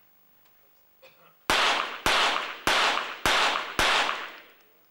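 A .22 Short rapid-fire pistol firing a five-shot series: five sharp cracks about two a second, each with a short echo. This is one timed rapid-fire series.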